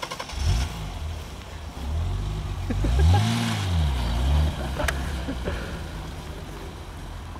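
BMW E30 325i's 2.5-litre straight-six catches and starts about half a second in, then runs, revving up and back down once around three seconds in before settling to a steady run.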